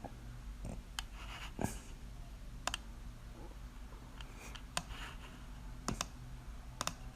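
Scattered light clicks and taps of hard parts being handled as a cassette roller shade's tube is worked out of its cassette, about half a dozen sharp clicks spread irregularly over a faint low hum.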